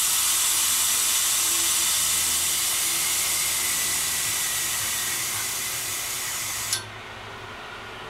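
Residential A/C condenser unit hissing loudly, a steady high hiss that slowly fades and then cuts off suddenly with a click near the end, leaving a quieter low hum. It is the noise the unit has been making before shutting itself off and not cooling.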